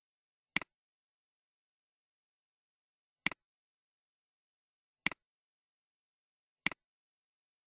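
Four computer mouse clicks, each a quick double tick of press and release, spaced one to three seconds apart against dead silence, as checkboxes are ticked on a web form.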